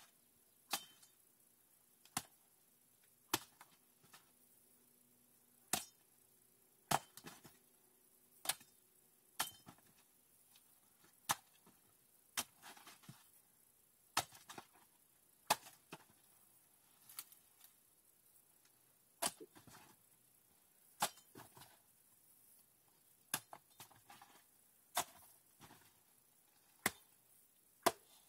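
A hand tool chopping into dense, spiny plant growth: sharp single strikes, about one every second or two, some followed by a short rustle of stems and leaves.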